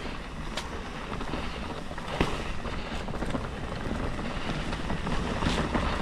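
Commencal Meta mountain bike being ridden over a rough trail: steady rolling rumble of the tyres and wind on the microphone, with a few sharp knocks and rattles from the bike over bumps.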